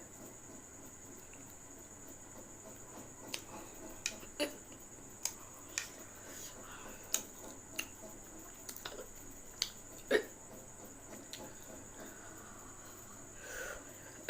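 Close mouth sounds of a person eating: sharp, wet clicks and smacks at irregular intervals, the loudest about ten seconds in.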